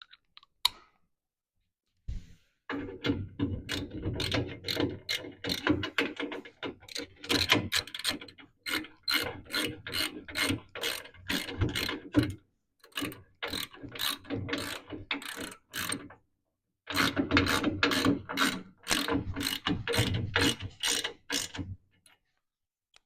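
Socket ratchet wrench clicking as a 3/4-inch nut on a radius rod bolt is tightened: quick runs of clicks, a couple a second, broken by two short pauses.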